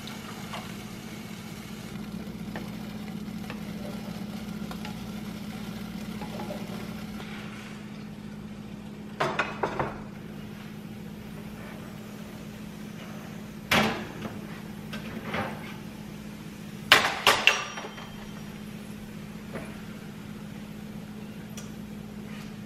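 Beaten eggs poured into a hot pan of browned sausage, sizzling over a steady low hum. Through the second half come several sharp clanks and knocks of cookware, an oven door and an oven rack being handled.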